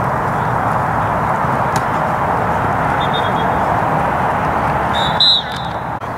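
Steady outdoor noise haze, with a faint high whistle tone about three seconds in and then one short, sharp referee's whistle blast about five seconds in, the loudest sound.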